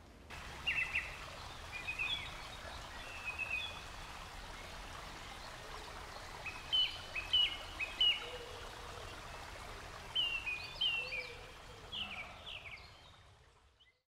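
Small woodland birds chirping in short, quick phrases over a steady rush of running stream water; the whole ambience fades out near the end.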